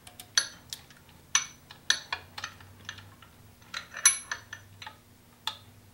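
Irregular sharp metallic clinks and taps of hand tools against metal engine parts, about a dozen spread unevenly over a few seconds, each with a short bright ring. A faint steady hum runs underneath.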